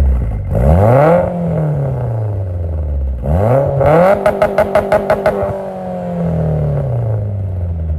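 Car engine revved hard several times, each rev climbing quickly and falling back. About halfway through, a rapid stutter of about eight pulses a second comes in while the revs are held high, and then the revs fall away slowly.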